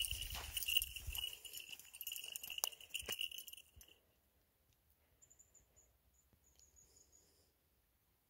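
Footsteps crunching on a gravel path with a steady high jingling, both stopping suddenly about four seconds in. After that come a few faint, high bird chirps.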